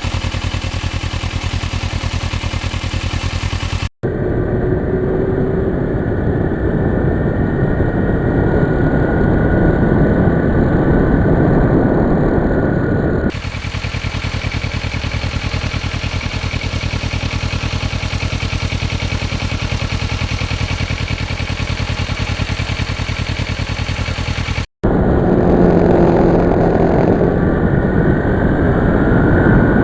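Motorcycle engine running under way, with wind and road noise. The pitch rises gradually in places as it pulls, and the sound cuts abruptly twice between edited clips.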